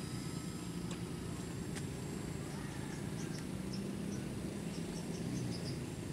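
Electric motor and propeller of a foam RC model plane droning steadily in flight at a distance, its pitch shifting slightly partway through, with faint high chirps over it.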